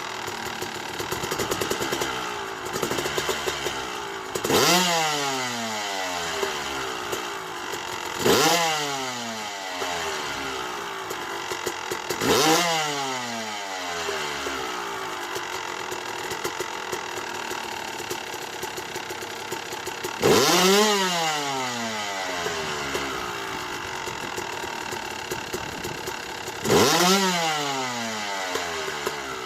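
2008 Yamaha YZ250 two-stroke dirt bike engine with a big bore kit and APT Smartcarb idling, blipped five times so that it revs up sharply and falls back each time. The carb's fuel screw has just been turned richer to 15 clicks while the owner tunes out a lean, fuel-starved top end.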